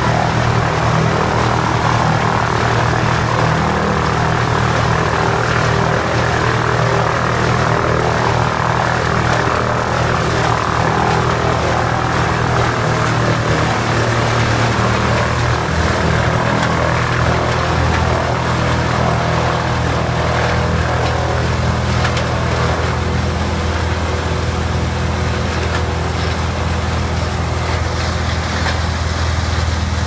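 Wood chipper running steadily at speed: a constant low engine drone under a loud, even rushing noise.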